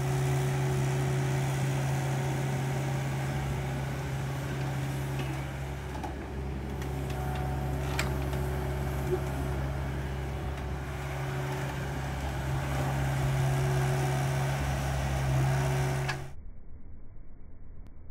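John Deere compact excavator's diesel engine running steadily under work. About sixteen seconds in, the engine sound cuts off abruptly and gives way to a quieter, muffled sound.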